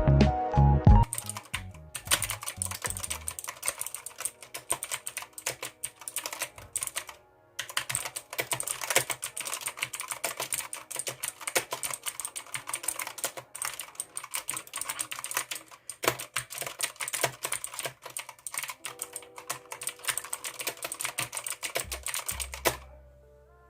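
Rapid typing on a Redragon K568 Dark Avenger tenkeyless mechanical keyboard with clicky Outemu blue switches: a dense, fast run of sharp key clicks with one short pause partway through.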